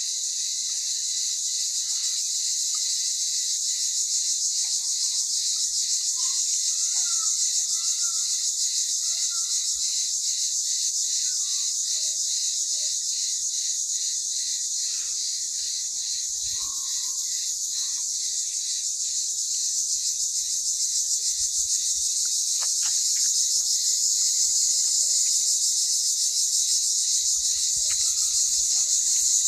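A steady, high-pitched, pulsing chorus of insects trilling, with a few faint bird chirps in the middle of it.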